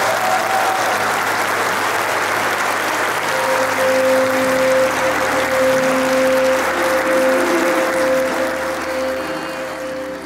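Congregation applauding, with music in long held notes coming in under the clapping about three and a half seconds in.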